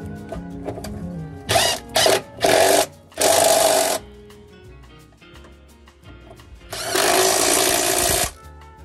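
Power tool run in five short bursts, a whine under a loud rasp, the last burst the longest, over background music.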